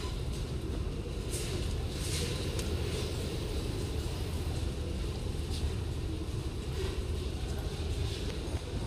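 Metro platform din: a steady low rumble around a standing subway train with its doors open, with faint scuffs and steps of passengers boarding.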